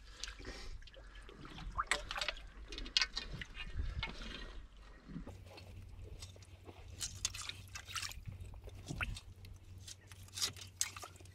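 Shallow rock-pool water sloshing, trickling and dripping as a hand and a lobster hook probe a hole under the rocks, with scattered small splashes and clicks.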